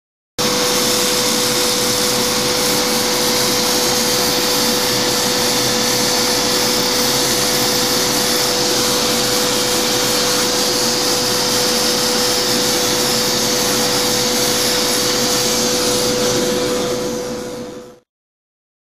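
Hand-held power tool with a dry core bit drilling through a thin 3.5 mm Kerlite tile, its motor running at a steady pitch with a constant whine over the grinding noise. It starts abruptly and dies away near the end.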